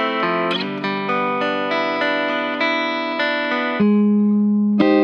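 Clean electric guitar (a Baranik B-1) picked in a jangly arpeggio through an Empress Compressor MKII, about three notes a second, each note even and sustained. Near the end it changes to loud strummed chords left ringing, under heavy compression.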